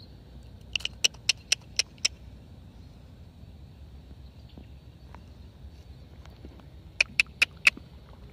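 Two quick runs of sharp clicks, about four a second: six about a second in, and four more near the end.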